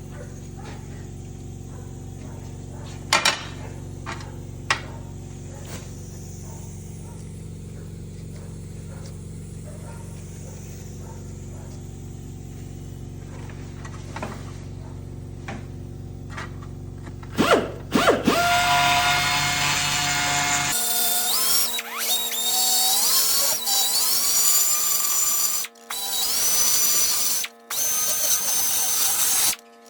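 An air compressor runs steadily with a low hum, with a couple of knocks early. Then a pneumatic grinder spins up with a high whine, grinding the bolt heads in several bursts that stop and start, while the compressor's hum stops about two-thirds of the way in.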